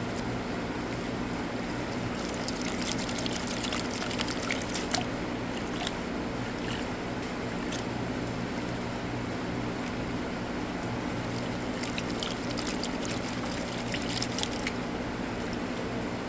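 Water sloshing and pouring off a gold pan as paydirt is washed down, with bursts of splashing and gravel rattle a few seconds in and again near the end. A steady low mechanical hum runs underneath.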